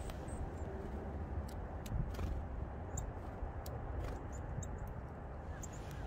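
Steady low wind rumble on the microphone, with a few faint, brief high ticks scattered through it.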